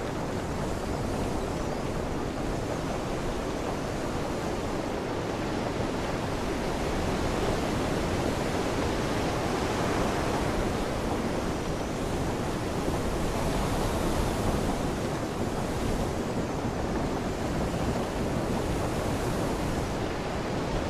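Steady rush of heavy rain falling, with wind buffeting the microphone; it swells a little louder midway.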